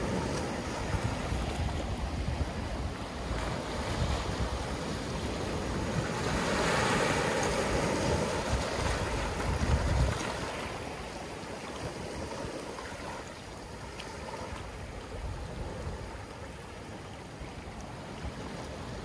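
Small ocean waves washing up a sand beach and through scattered lava rocks, with a steady hiss of surf. One wave rushes in more loudly about six seconds in and drains away after about ten seconds. Light wind buffets the microphone with a low rumble.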